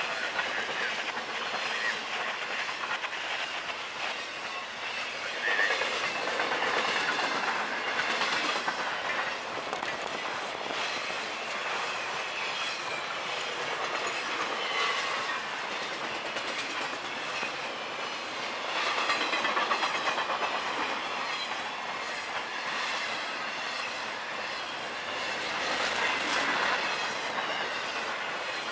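Intermodal freight train cars rolling past at speed: a steady rumble of steel wheels on rail with a clickety-clack of wheels over rail joints, swelling louder now and then.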